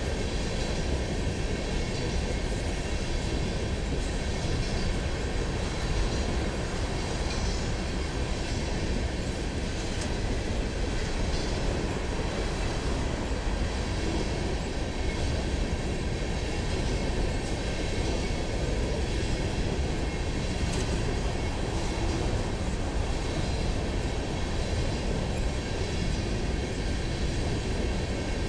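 Empty coal hopper cars of a long freight train rolling past, a steady rumble and rattle of steel wheels on the rails.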